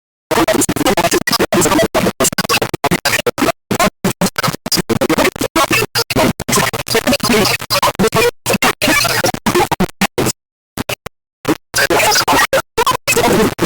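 Stuttering, glitched music: loud fragments cut on and off many times a second with dead-silent gaps between them, like a scratched or skipping track. It breaks off about ten seconds in, gives a few short blips, and comes back for the last two seconds.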